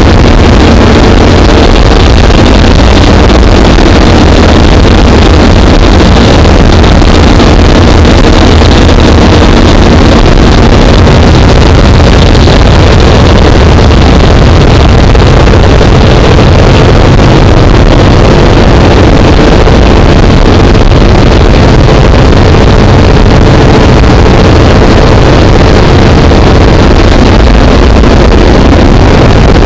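Aircraft engine and propeller noise heard inside the cabin of a jump plane: a steady, very loud drone that overloads the microphone.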